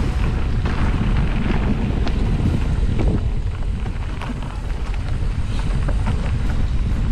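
Wind rushing over a GoPro's microphone on a mountain-bike ride, a steady deep buffeting, with scattered short clicks and knocks from the bike on rough ground.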